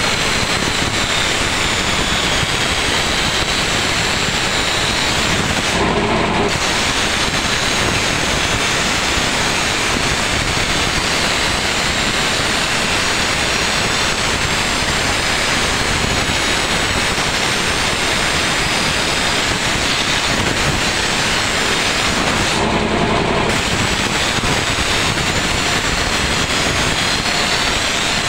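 A steel chaff-cutter blade being ground on a motor-driven grinding wheel, a loud, steady grinding hiss. The grinding drops away briefly twice, about six seconds in and again near 23 seconds.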